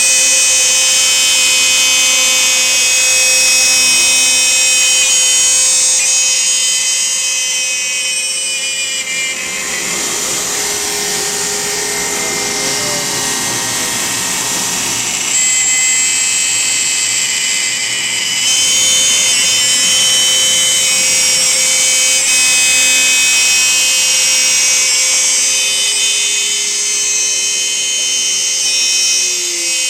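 Home-built CNC router running with a steady high-pitched machine whine. Some of its tones slide up and down a few times around the middle and again near the end.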